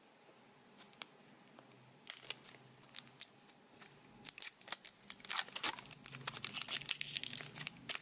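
Packaging of a toy surprise egg being opened by hand: crinkling and sharp crackling clicks. They start about two seconds in and come thick and fast from about halfway.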